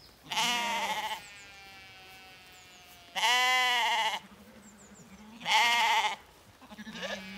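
Zwartbles lambs bleating: three loud, quavering bleats of about a second each, spaced a couple of seconds apart, with a fainter bleat near the end.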